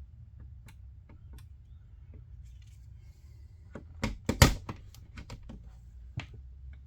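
Scattered clicks and knocks of hands pressing a smart outlet into a tight electrical wall box and fastening it, with a cluster of louder knocks about four seconds in, over a low steady hum.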